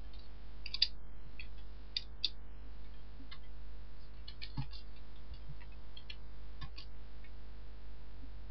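Computer keyboard keys being typed, irregular single clicks and short runs of clicks, over a steady low hum.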